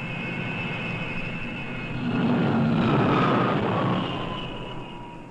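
Jet aircraft engines whining steadily. About two seconds in, the noise swells for a couple of seconds with a falling pitch, as a jet passes close, then fades.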